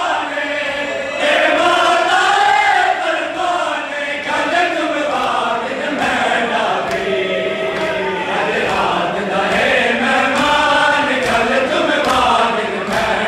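Crowd of men chanting a noha (Shia mourning lament) together in long rising and falling phrases. From about five seconds in, steady sharp chest-beating slaps (matam) join the chant, roughly one every two-thirds of a second.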